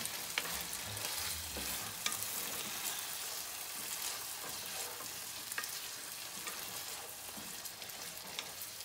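Ground beef and sloppy joe sauce sizzling in a nonstick skillet as a spatula stirs it. Now and then the spatula gives a light click or scrape against the pan.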